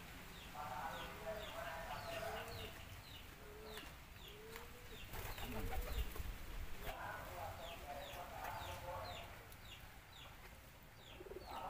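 Farmyard birds calling: chickens clucking with short arched low notes, while small birds chirp over and over in quick, high, falling notes.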